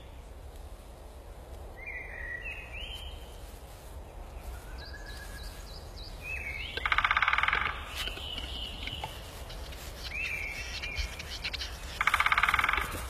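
Western capercaillie cocks displaying at a lek. Two rasping, scratchy song phrases come about seven and twelve seconds in, among short whistled bird calls that slide in pitch.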